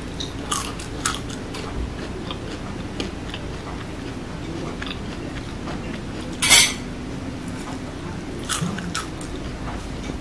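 A person chewing a crispy deep-fried insect close to the microphone: a string of small, irregular crunches, with one louder, longer crunch about six and a half seconds in.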